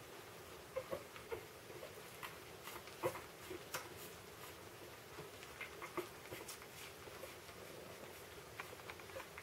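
Litter of border collie puppies nursing from their mother: faint wet suckling and smacking clicks with small squeaks, scattered irregularly, the loudest about three seconds in.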